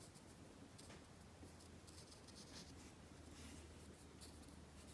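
Very faint, soft rustling of a watercolour brush being stroked across watercolour paper, over near silence.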